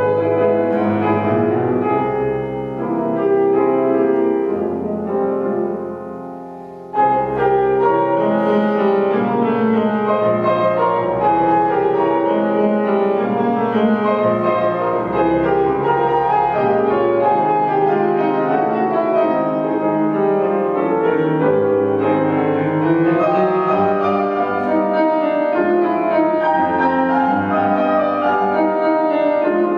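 Bohemia grand piano played solo: a dense passage of many quick notes that grows softer a few seconds in, then comes back suddenly loud at about seven seconds and stays full.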